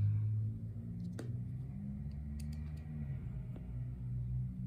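A few faint clicks of a small screw being handled and driven with a screwdriver into a Briggs & Stratton carburetor body, the clearest about a second in, over a steady low hum.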